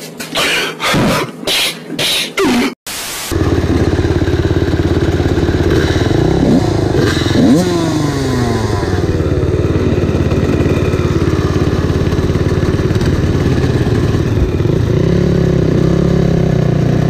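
Dirt bike engines idling together, the nearest a Honda CR125 two-stroke, with a couple of quick throttle blips rising in pitch a few seconds after the sound begins. The engine sound starts suddenly about three seconds in, after a short edited-in clip.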